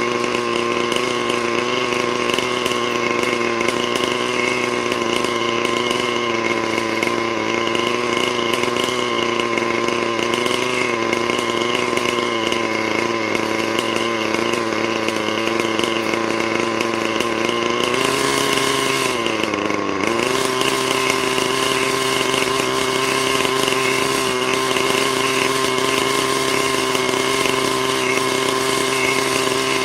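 Thunder Tiger Redline RL-53H two-stroke glow engine of an RC helicopter running steadily without rotor blades during its break-in. About two-thirds of the way through, its pitch briefly dips and then settles back.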